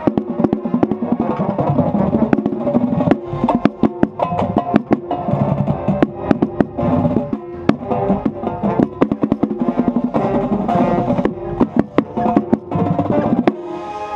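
Marching band playing its field show: wind instruments holding sustained tones over a busy drumline, with many sharp drum and stick strikes heard from within the drumline.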